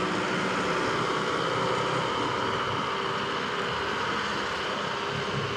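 Steady street background noise: a continuous hum and hiss with a few faint steady tones and no distinct events.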